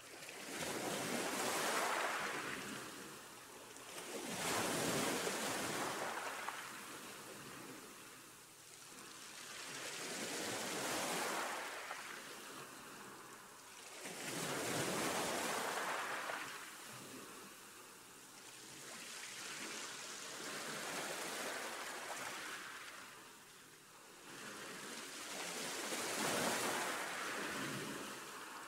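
Ocean surf washing in, a rushing noise that swells and fades about every four to five seconds.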